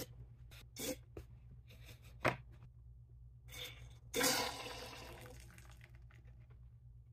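SodaStream carbonator with a bottle of orange juice being unlocked: a few short clicks and knocks, one sharp click about two seconds in, then about four seconds in a burst of hissing gas and fizzing juice foam as the pressure vents, fading over a second or two.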